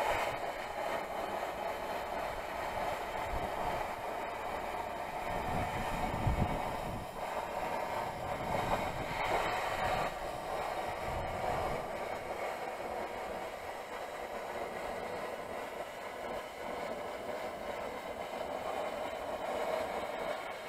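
Handheld plasma cutter cutting through rusty sheet steel, a steady hiss that runs without a break.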